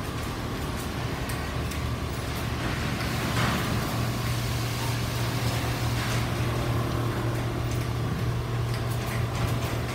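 Richpeace single-head quilting machines running together on a factory floor: a steady mechanical hum with a constant low drone, and a brief hissing swell about three and a half seconds in.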